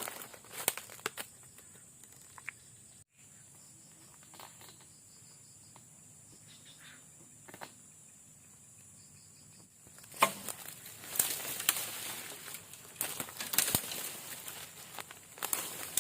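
Rustling and crinkling handling noise, sparse at first and then dense and louder from about two-thirds of the way in. Under the quieter first part runs a steady high-pitched insect drone that stops about ten seconds in.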